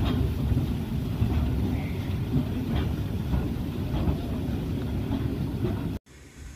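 Narrow-gauge steam locomotive drawing its wooden carriages slowly along a station platform: a steady low rumble with a few faint clicks. About six seconds in it cuts off suddenly to quieter outdoor sound.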